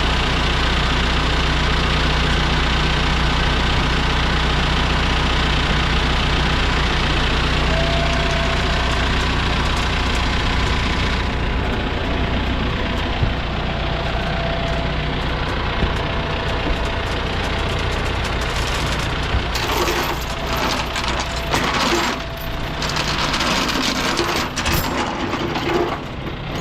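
John Deere 5100E tractor's diesel engine running steadily. In the last several seconds it is joined by a run of metallic clinks and rattles.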